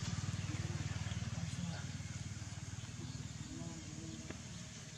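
An engine running at idle: a steady low rumble with a fast even pulse that eases off slightly toward the end.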